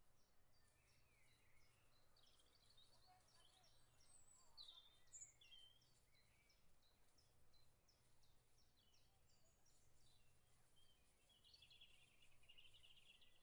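Near silence, with faint bird chirps and short calls and a buzzy trill near the end, over a run of faint, evenly spaced high ticks.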